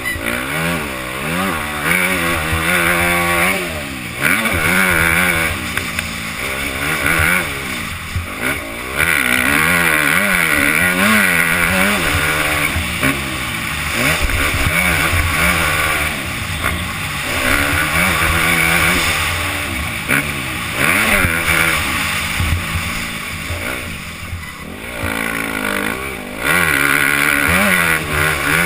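Motocross bike engine revving hard and falling back over and over as the rider accelerates and backs off, with a rush of wind noise.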